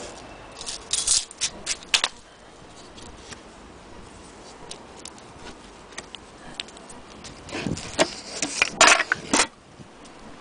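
Handling noise from a small loose piece, clicking and rattling as it is turned in the hand and knocked against the wooden wall-clock case. It comes in two busy clusters, one just after the start and a louder one near the end, with only a few faint clicks in between.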